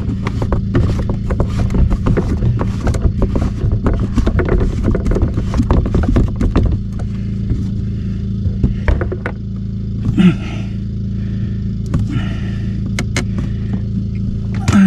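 Plastic sink drain fittings clicking and scraping as a slip nut on the drain pipe is handled and turned by hand: a dense run of small clicks for the first several seconds, then only a few. A steady low hum sits underneath.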